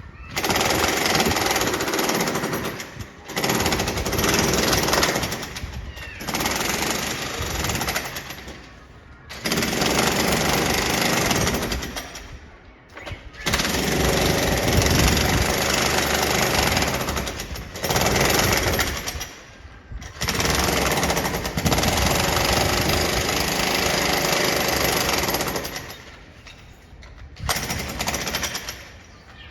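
A jackhammer chiselling a concrete floor in a neighbouring flat during renovation. It hammers in bursts of a few seconds each, about eight in all, with short pauses between them.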